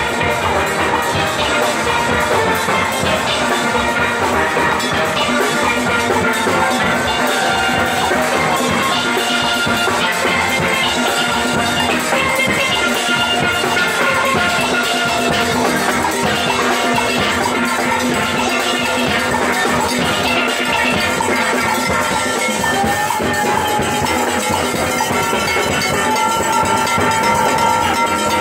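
Live steelband playing: many steel pans, from the shiny tenor and mid-range pans to the big white-painted bass drums, ringing out a tune over a steady beat of drums and percussion.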